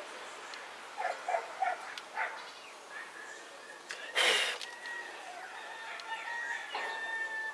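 Birds calling in the background: a few short notes about a second in, then longer held calls through the second half. A brief loud rustle comes about four seconds in.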